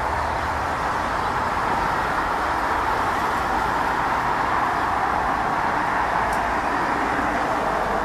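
Steady road-traffic noise, an even rush with no clear bird calls.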